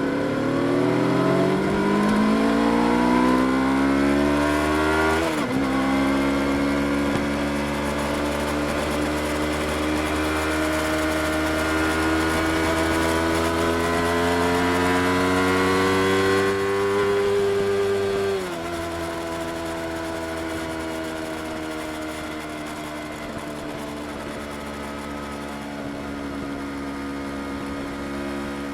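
Yamaha R25's 249 cc parallel-twin engine under acceleration. The pitch climbs fast for about five seconds, breaks sharply at a gear change, then climbs slowly and steadily until the throttle closes at about eighteen seconds. After that it runs at a lower, steadier, quieter note.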